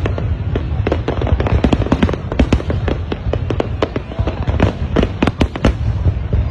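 Aerial fireworks display: many shells bursting in a rapid, continuous barrage of bangs and crackles over a steady low rumble.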